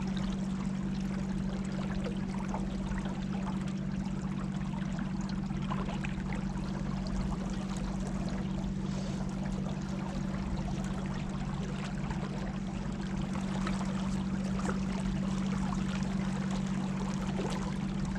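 Water rushing and splashing along the hull of a boat moving at a good clip on a river, over a steady low hum.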